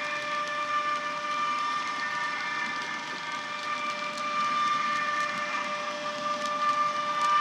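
ESU LokSound 5 sound decoder in a Roco model of a DB class 185 electric locomotive, playing the locomotive's running sound through its upgraded speaker: a steady electric whine of several held tones over a soft rolling hiss.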